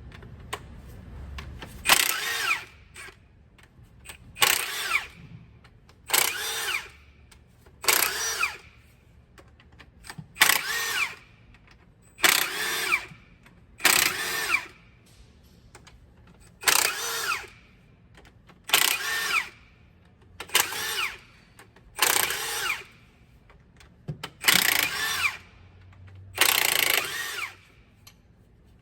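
A handheld power tool, like a drill or power ratchet, run in about thirteen short bursts of roughly a second each, about every two seconds, with a whirring pitch that shifts within each burst.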